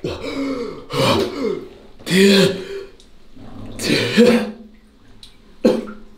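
A person coughing and clearing their throat in a run of about five strained vocal bursts; the last, near the end, is short and sharp.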